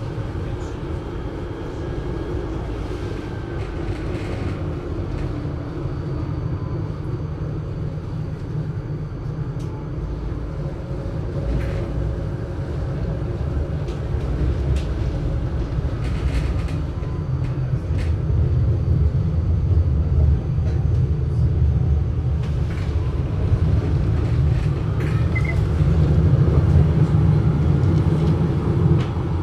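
Adtranz GT6M low-floor tram standing at a stop with its equipment running: a steady low rumble with a faint thin high whine. The rumble grows louder in the second half.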